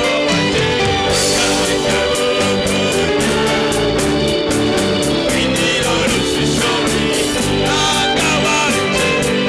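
Gospel worship music: a band with guitar and a steady drum beat, with singing.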